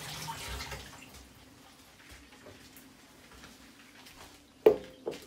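Hot tap water running over a metal whipped-cream siphon, warming it so the set mixture inside loosens for foaming; the water fades out after about a second. Near the end comes one sharp loud knock, followed by a smaller one.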